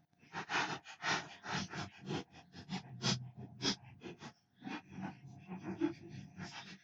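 Short, irregular scraping strokes on a PlayStation 4's plastic case, a few each second, as dirt is worked off it.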